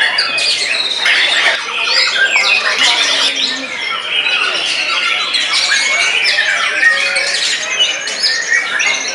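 White-rumped shama (murai batu) singing hard after its moult: a loud, continuous, fast run of varied whistles, trills and harsh chattering notes.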